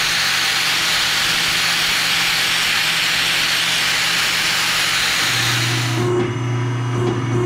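Angle grinder running with its disc against the edge of a stainless steel tag, a loud steady grinding hiss over the motor's hum, deburring and smoothing the plasma-cut edges. The hiss stops abruptly about six seconds in, leaving a steady low hum.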